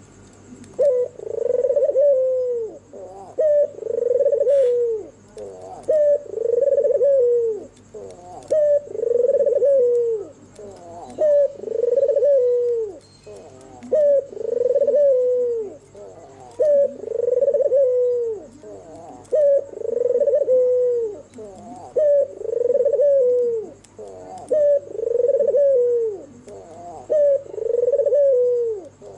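A white, red-eyed (albino) puter dove, the domestic Barbary or ringneck dove, cooing over and over in its full territorial song. It gives about a dozen matching coos, each about a second and a half long, with short pauses between them.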